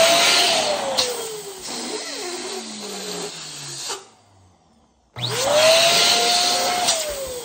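Electric balloon pump running while it inflates a latex balloon to pre-stretch it. Its motor whine rises as it starts, then sinks steadily in pitch as the balloon fills. It cuts off about four seconds in and starts again a second later.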